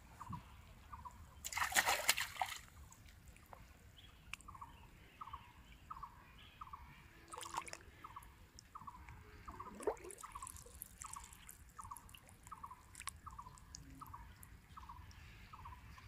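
River water splashing once, loudly, about two seconds in, followed by smaller drips and sloshes as the fishing line and float settle. Under it a short chirp repeats evenly, about one and a half times a second.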